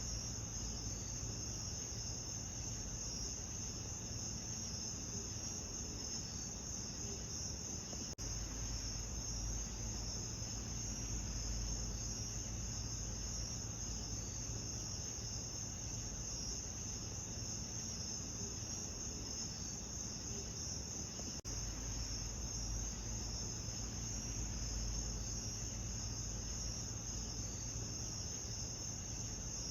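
Continuous chorus of crickets, a steady high-pitched trilling over a low, even rumble, with two brief dropouts about 8 and 21 seconds in.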